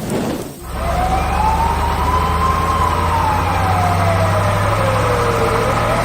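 Emergency vehicle siren wailing over a steady engine hum: one slow rise and fall in pitch, then starting to rise again near the end. It comes in about half a second in, after a short noisy stretch.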